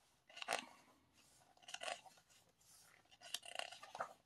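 Glossy album photobook pages being turned and handled, in about four short crisp rustles.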